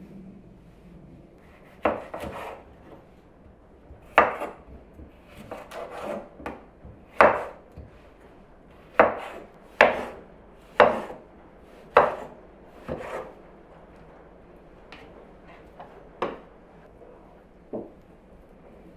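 Kitchen knife chopping vegetables on a wooden cutting board: about a dozen sharp knocks of the blade striking the board, irregularly spaced roughly a second apart, fewer and fainter near the end.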